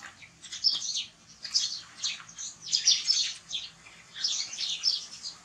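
Rapid high-pitched chirping calls that come in short clusters, roughly one cluster a second.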